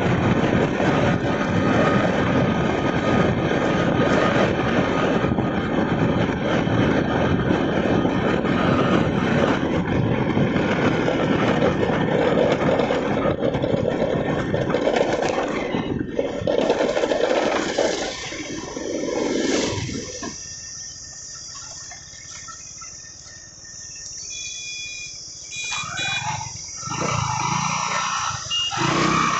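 Motorcycle riding along a road, its engine running under steady wind rush over the microphone. About two-thirds of the way through it slows to a stop and the noise drops away. Near the end, short varied sounds rise again.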